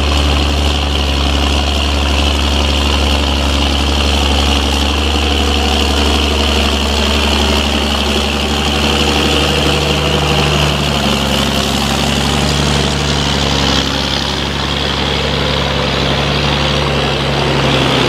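Ford TW-25 tractor's turbocharged six-cylinder diesel engine running steadily under load as it pulls a mounted plough through heavy, wet ground.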